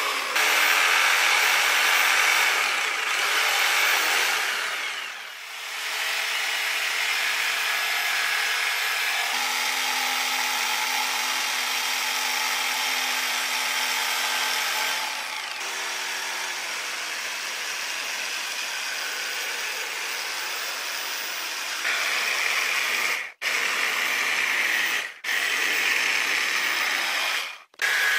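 Electric jigsaw cutting through a wooden board, its motor running steadily under the rasp of the reciprocating blade. Near the end the sound cuts out abruptly three times and comes straight back.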